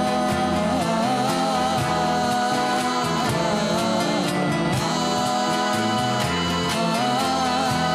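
Acoustic band playing an Azerbaijani folk song: strummed acoustic guitars and a cajon beat under a sung melody line that wavers up and down.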